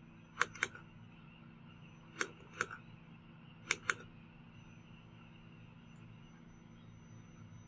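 Mouse buttons on a Sony Vaio C1 laptop clicked three times, each a quick pair of sharp clicks, in the first four seconds, over a faint steady hum.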